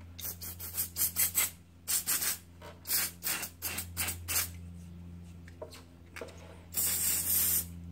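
A rag rubbing at brake caliper pistons in a quick run of short scrubbing strokes, cleaning off the dirt. Near the end comes about a second of steady hiss from an aerosol can of brake cleaner being sprayed.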